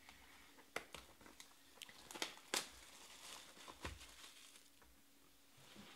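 Clear plastic shrink wrap being torn and crumpled off a sealed trading-card box: a quick run of soft crackles and crinkles, the sharpest snap about two and a half seconds in.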